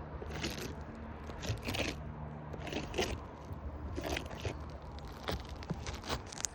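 Irregular gritty crunches and scrapes of contact with granular asphalt roof shingles, short and uneven with a few sharper clicks.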